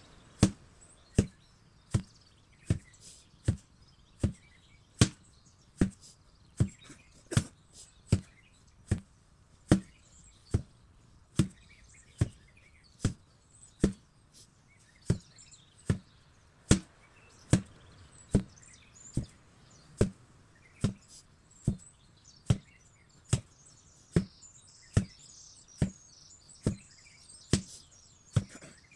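An 8 kg sledgehammer striking in a steady rhythm, a little more than one blow a second, each blow a sharp thud. Birds chirp faintly behind it.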